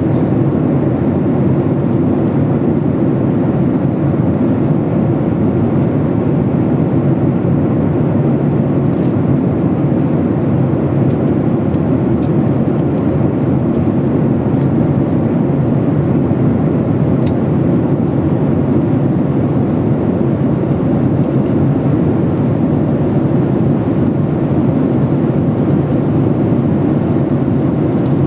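Steady engine and air-system noise of a Boeing 737 airliner, heard from inside the passenger cabin.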